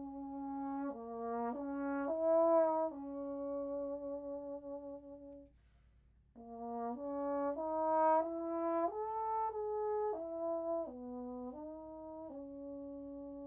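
Solo trombone playing a slow melody unaccompanied: a short phrase of changing notes that settles on a long held note, a breath of under a second about halfway, then a longer phrase that ends on another long held note.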